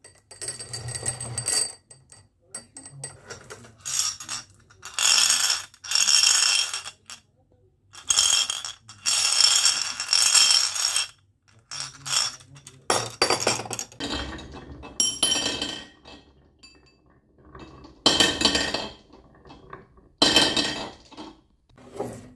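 Marbles rolling and clinking along a toy marble run, in repeated bursts of about a second each with a bright ringing clink.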